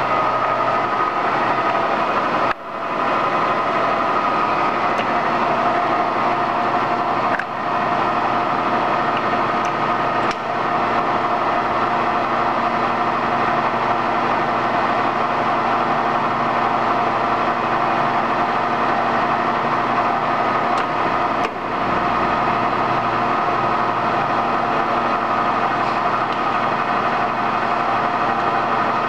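SERVO 16 x 40 engine lathe running with its spindle turning under power: a steady, even machine hum made of several held tones. It drops out briefly four times.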